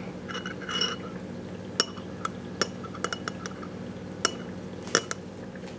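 Metal screwdriver clinking and scraping against the inside of a glass jar while scooping out thick ABS sludge: about half a dozen sharp clinks, spread unevenly over a few seconds.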